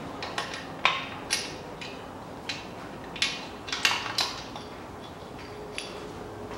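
Sharp metallic clinks of the Toyota Caldina 2.0-litre engine's main bearing caps and bolts being taken off the crankshaft and handled: eight or so scattered clinks in the first four seconds, the loudest about a second in, and one more near the end.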